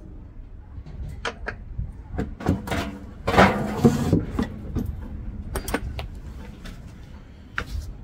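Knocks and clicks from hard objects being handled, with a louder scraping rub lasting about a second around the middle.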